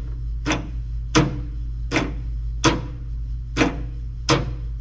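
Home-made safety door latch and its linkage being worked over and over, a sharp metal clunk about every three-quarters of a second, six in all, over a steady low hum.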